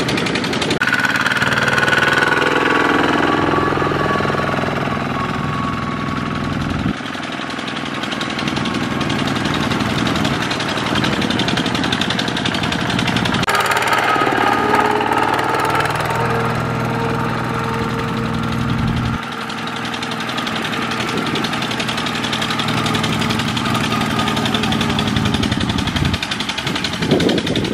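Single-cylinder diesel engine of a two-wheel walking tractor chugging under load, a loud, steady knocking run. Its sound changes abruptly a few times as the shots cut.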